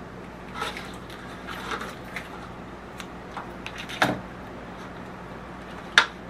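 Plastic rib package crinkling and rustling as it is squeezed over an aluminium foil pan, with a few sharp knocks, the loudest near the end. A steady faint low hum runs underneath.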